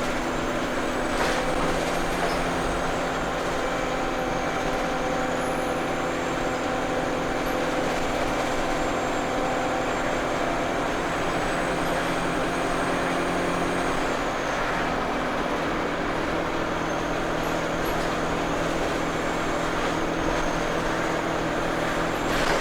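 ADL Enviro 200 single-deck bus under way: the diesel engine runs steadily with a thin, high turbo whine that drifts in pitch and drops away about fourteen seconds in before returning.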